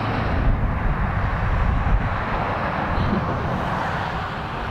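A vehicle passing on the highway: a steady rushing noise that swells over the first couple of seconds and eases off, over a low buffeting rumble of wind on the microphone.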